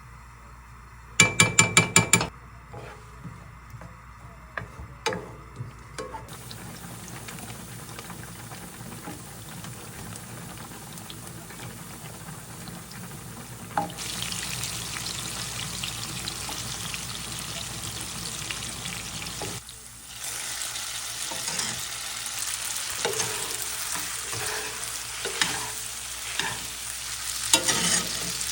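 Food frying and sizzling, the sizzle stepping up about halfway through and growing louder again near the end, with small crackles. A quick run of about six loud clicks comes a little over a second in.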